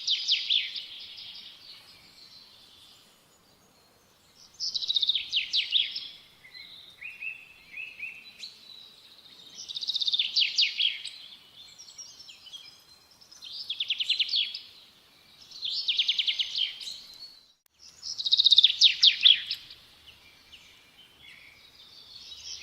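A songbird singing: a phrase of rapid high notes about every three to five seconds, with softer chirps between phrases.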